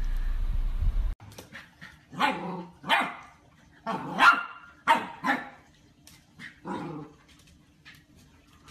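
A dog barking several times, singly and in quick pairs, the loudest barks near the middle. It follows a steady low rumble that cuts off suddenly about a second in.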